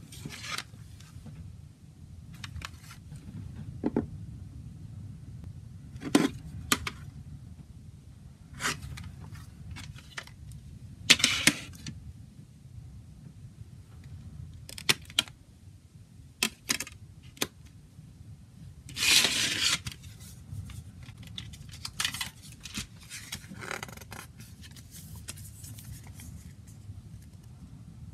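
Plastic CD jewel case being handled and opened: scattered sharp clicks and snaps of the case and disc tray, with a louder scrape about two-thirds through and light rustling of the paper booklet being slid out of the front cover.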